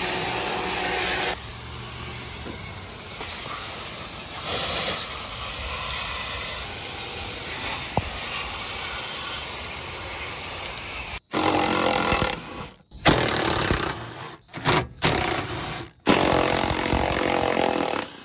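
A shop vacuum runs for about a second and then cuts off. A garden hose follows, spraying water against a car's rear body panel as a steady hiss. Near the end, a cordless power tool spins out bolts in several short bursts.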